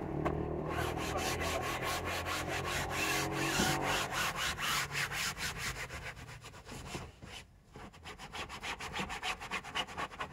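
A cleaning cloth rubbing back and forth over a car's fabric headliner in quick, rapid strokes, scrubbing the dirty headliner. The strokes are stronger in the first half, then softer and more broken, with a brief pause about three-quarters through.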